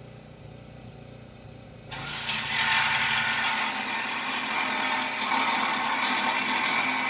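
A corded power tool starts cutting into the steel main beam of a mobile home frame about two seconds in, a loud, harsh grinding with a wavering whine that runs on steadily. Before it starts there is only a low steady hum.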